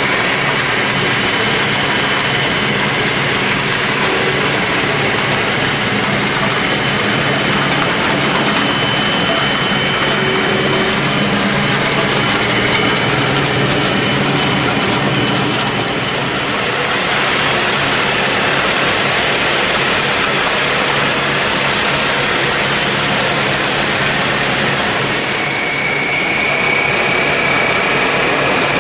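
Tractor engine and red currant harvester machinery running together: a steady engine drone under a dense mechanical rattle and hiss, with a faint high whine that comes and goes.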